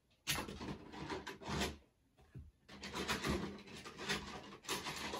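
Rummaging by hand while hunting for a re-railer track piece: irregular bursts of rustling and scraping with short pauses.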